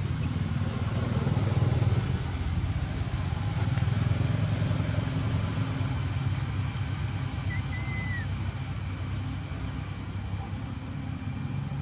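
Motor vehicle engine running steadily, swelling twice and then easing off, with a short high chirp past the middle.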